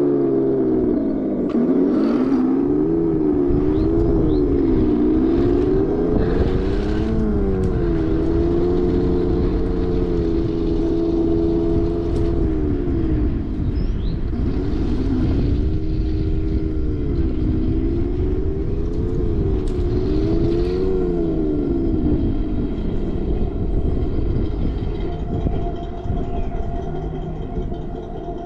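Heng Long RC tanks' electronic sound units playing simulated tank engine noise through small speakers. The pitch rises and falls again and again with the throttle over steady low noise, then settles to a steady idle near the end.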